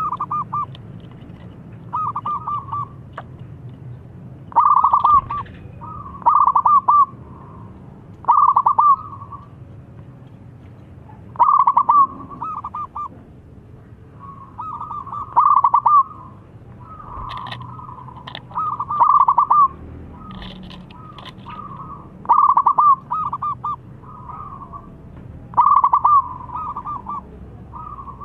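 Zebra dove (perkutut) singing: short rippling cooing phrases, each a quick run of staccato notes, repeated about every one to two seconds.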